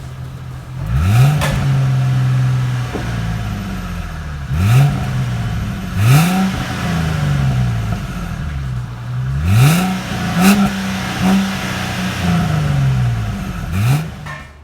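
2006 Ford Mustang's 4.0 V6 revved through its stock, unmodified exhaust with no turbo whistle fitted. It starts at idle, then comes a rev held for about two seconds, followed by several quick blips that each rise and fall back.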